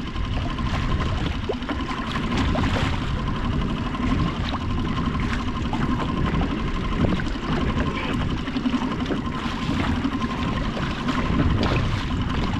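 Wind buffeting the microphone and choppy sea water lapping and sloshing against a fishing kayak, with splashing as a hooked king mackerel thrashes at the surface beside it near the end.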